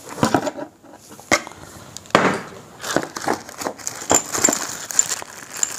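Cardboard box and plastic packaging being handled: irregular knocks, scrapes and crinkles.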